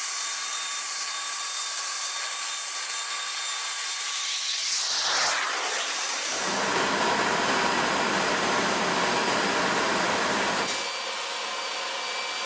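Steady machinery rush with a faint high whine from a parked C-5 Galaxy and its ramp equipment. It changes abruptly about halfway through and gets louder, with a thin high whistle, before dropping back near the end.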